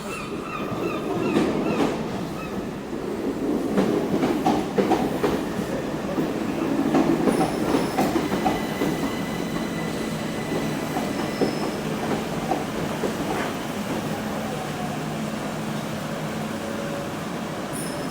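Passenger train running on the rails, its wheels clicking over rail joints with a rumble, and thin squeals from the wheels; the clatter is loudest in the first half, then evens out.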